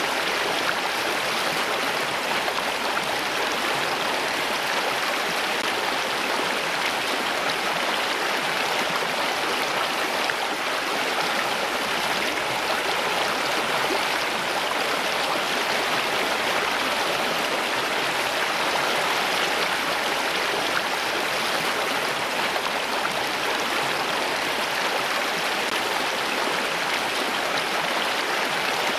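Flowing water running steadily, an even rushing sound with no breaks or distinct splashes.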